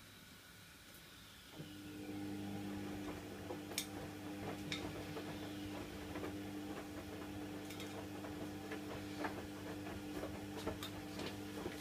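Plastic exhaust-fan blade scrubbed with a sponge at the sink: irregular scratchy clicks and scrapes. Under them, a steady low hum comes in about a second and a half in.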